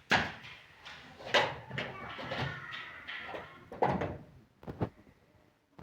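A series of household knocks and bumps: three strong ones about a second or two apart, a lighter one, then a sharp click at the end, with handling noise between.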